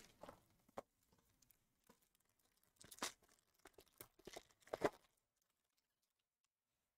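Foil trading-card pack being torn open and crinkled by hand: a few short, faint tearing and crinkling sounds, the clearest about three seconds in and just before five seconds.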